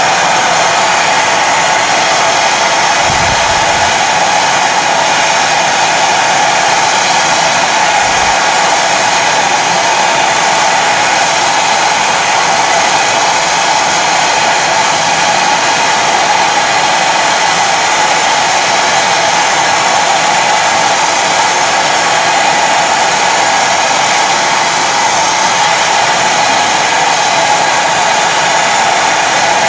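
Loud, steady hiss of a sandblaster's compressed-air jet blasting rusty tractor parts clean, with two brief low thumps about three and eight seconds in.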